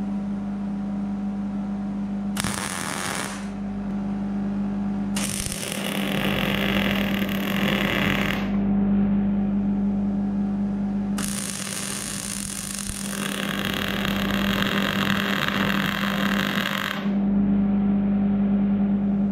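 MIG welder (Hobart Handler 210 MVP) welding a steel angle-iron frame, the arc giving a frying crackle in three runs: a short one about two seconds in, then two longer beads of a few seconds each, and another starting at the very end. A steady low hum continues between the welds.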